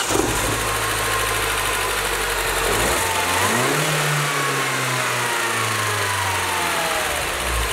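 Mini's four-cylinder engine, just started and idling, blipped once about three seconds in and settling back to idle, a faint whine falling away as the revs drop. It is running without problems after a cylinder head replacement.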